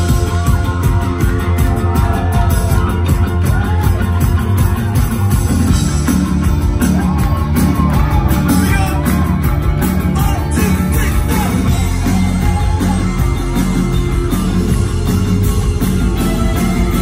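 Rock band playing live at full volume: electric guitars, bass and drums with a steady beat, and singing over them.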